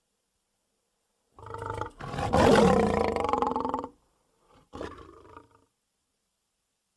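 A lion's roar: a short opening call about a second and a half in, then a long loud roar of about two seconds, followed by a shorter, quieter roar about a second later.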